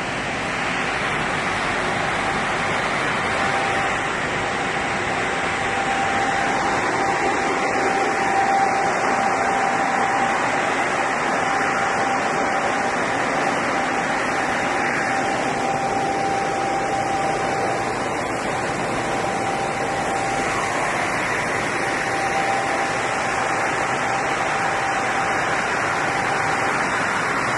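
Flat glass washing and drying machine running steadily: a continuous rushing noise with a thin steady whine under it.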